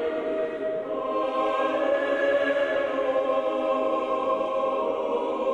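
Orthodox church choir singing slow, held chords.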